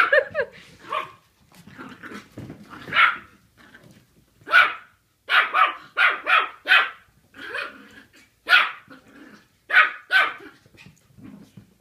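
Puppy barking in play: about a dozen short, high-pitched yaps, five of them in a quick run midway through.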